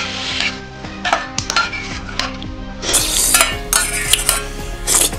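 Metal spoon scraping and clinking against the inside of a small stainless steel bowl, with repeated light taps, the scraping getting louder and harsher about three seconds in.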